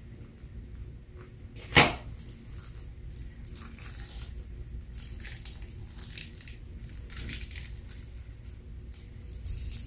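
Hands handling slime-making materials: one loud sharp snap about two seconds in, then light crackling and rustling.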